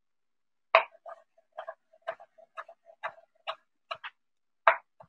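Knife chopping on a cutting board: a run of about ten short, sharp knocks, roughly two a second, starting just under a second in.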